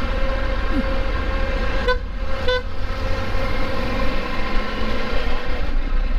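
Two short horn beeps about half a second apart, over the steady wind rush and engine rumble of a motorcycle being ridden.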